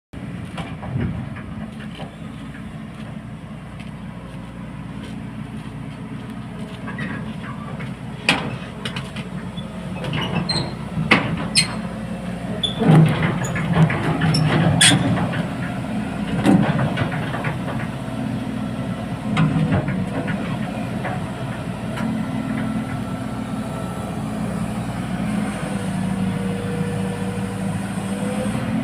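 Hydraulic excavator's diesel engine running steadily under load, with loud metal clanks and knocks between about 8 and 20 seconds in, as its steel tracks and ramps bang while it climbs onto a self-loader truck.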